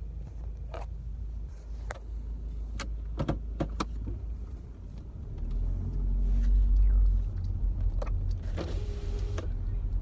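Car cabin: a low engine and road rumble that swells for about two seconds in the middle, with a few handling clicks. Near the end a short steady motor whine, a power window moving.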